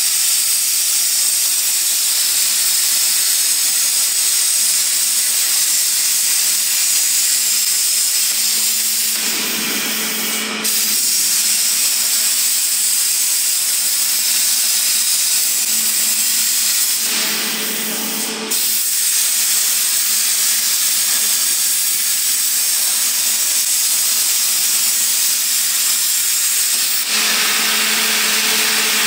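CNC plasma cutting torch on an H-beam cutting robot, its arc giving a loud, steady hiss as it cuts through the steel beam. The hiss fades twice, about nine and seventeen seconds in, leaving a low hum, and comes back abruptly each time. Near the end it gives way to the hum again as the arc goes out.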